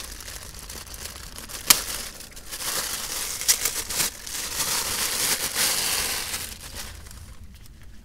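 A small bag holding a luggage net being opened and handled: crinkling and rustling with scattered clicks, one sharp click a little under two seconds in, dying away near the end.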